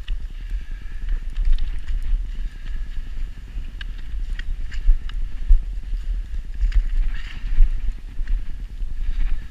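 Footsteps crunching on packed snow at a brisk pace behind a dog on a leash, an uneven run of crisp crunches over a steady low thudding.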